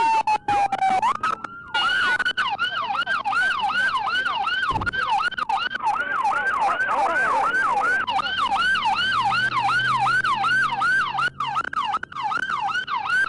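Police siren: a wail winding down in pitch, then switching to a fast yelp that sweeps up and down about three times a second, with a few brief cut-outs.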